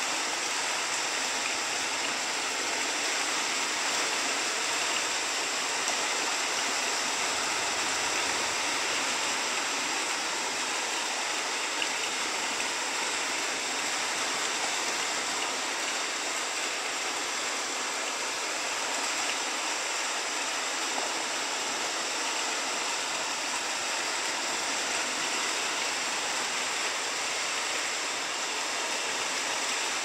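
Steady rain falling, an even hiss with no single drops or other sounds standing out.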